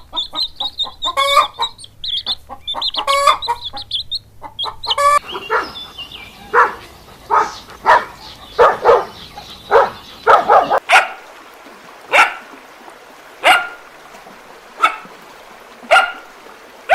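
Farm animal calls from several short clips cut together: bursts of short pitched calls, ending in a single call repeated about every second and a half.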